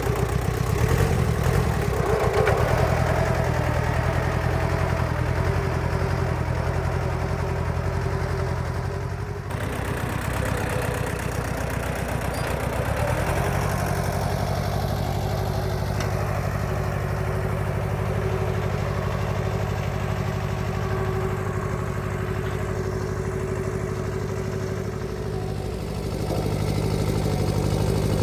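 Massey Ferguson tractor engine running steadily while pulling a plow through potato rows, its note dipping about a third of the way in and picking up again near the end.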